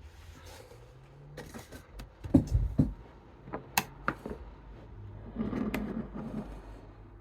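Clicks, knocks and light clatter of hand tools and a small metal lock being handled. The loudest knocks come about two to three seconds in, with single sharp clicks later on.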